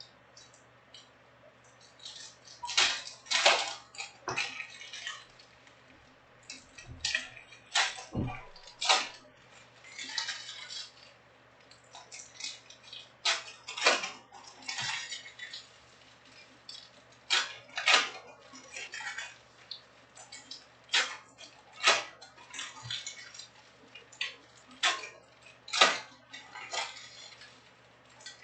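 Boxes and packs of Topps Stadium Club Chrome soccer cards being opened and handled: irregular crinkles, rips and clacks of wrappers, cardboard and cards, with short quiet gaps between them.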